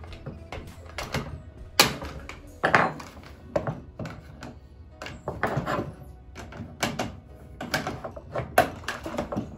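Background music with irregular clicks and knocks of plastic dishwasher rack parts being handled while a roller hinge is taken apart, about a dozen sharp knocks, some ringing briefly.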